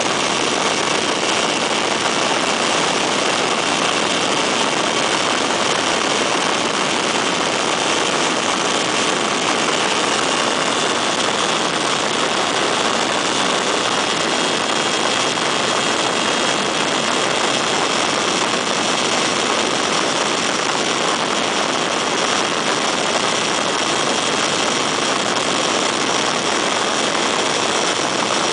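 Weedhopper ultralight's two-stroke engine and pusher propeller running at a steady power setting in flight, heard as a constant drone mixed with a dense rush of noise, with no change in pitch or level.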